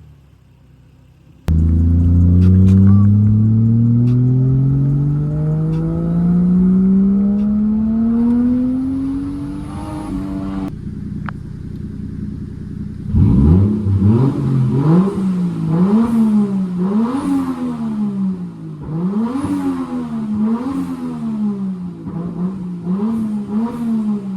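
A car engine cuts in and accelerates hard, its pitch climbing steadily for about nine seconds before cutting off abruptly. A couple of seconds later the engine is revved repeatedly, about eight rises and falls in pitch, each a second or so long.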